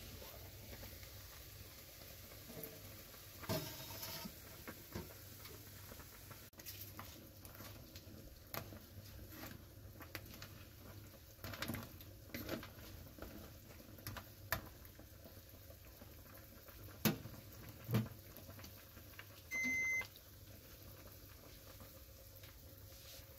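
Lobster curry simmering in a frying pan on an induction hob, with light bubbling and scattered clicks and clinks of a metal spoon and lid against the pan. A short electronic beep from the induction cooktop about twenty seconds in.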